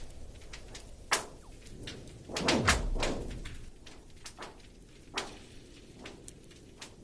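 Frozen lake ice on Lake Baikal cracking under stress. A sharp crack comes about a second in, then a louder, longer one whose sound sweeps down in pitch into a low boom, then another crack a few seconds later, with faint ticks and pings between.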